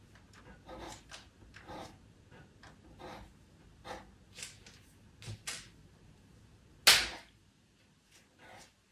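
Pastel pencil scratching across pastel paper in short, firm strokes, roughly one a second. About seven seconds in there is a single sharp tap, the loudest sound.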